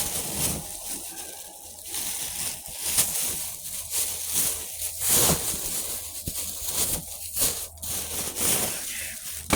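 Plastic parts bag rustling and crinkling while transmission parts are handled, with a few sharp knocks.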